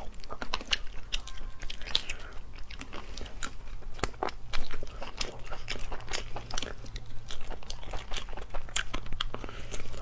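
Close-up eating sounds of cooked shellfish: irregular crackles and crunches as the shells are cracked and peeled by hand, with biting and chewing of the meat, one louder crunch about halfway through.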